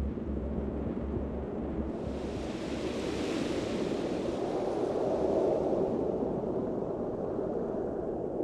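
A rushing, wind-like noise that swells up about two seconds in, peaks, and dies away, over a low pulsing hum in the first couple of seconds.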